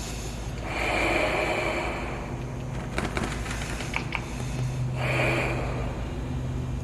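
A balloon being blown up by mouth: two long breaths of air pushed into it, the first about a second in and a shorter one near the five-second mark, with a few faint clicks in between.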